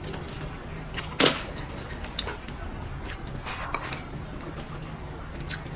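Close-up eating sounds: chewing, with wooden chopsticks clicking against a ceramic bowl as food is shovelled in. A scatter of sharp clicks, the loudest about a second in.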